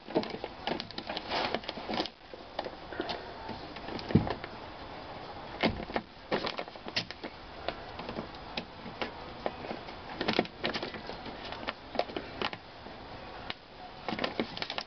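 Clear plastic weather-barrier sheet crinkling and crackling as it is pulled back and cut free of the door's sticky glue seam with a box cutter, in irregular clicks and rustles.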